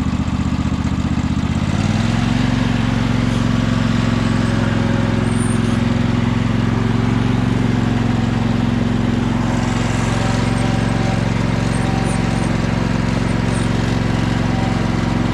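Sears Craftsman lawn tractor engine running just after a start. It picks up speed a little under two seconds in, then runs steadily.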